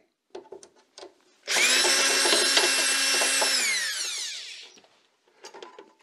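Cordless drill-driver running at a steady high whine for about two seconds while backing out the screws on the refrigerator's access panel, then winding down in pitch as the trigger is released. A few light clicks of handling come before and after.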